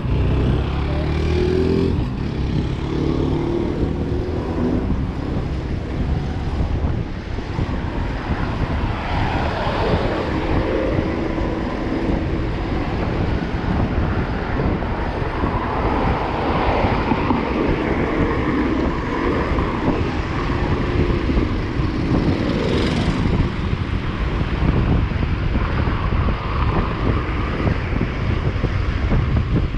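Wind buffeting the microphone of a moving bicycle, with city traffic running around it.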